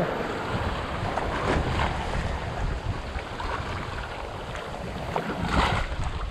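Small waves surging and washing around shoreline rocks, with wind buffeting the microphone. A louder wash of surf comes about five and a half seconds in.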